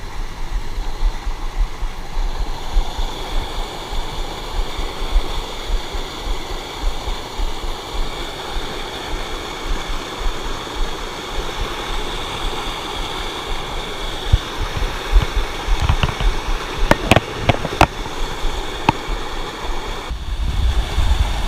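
Steady rushing noise with a cluster of sharp clicks near the end.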